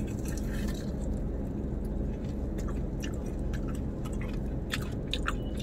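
Crunchy fried paneer momos being bitten into and chewed, with many short crisp crunches over a steady low hum.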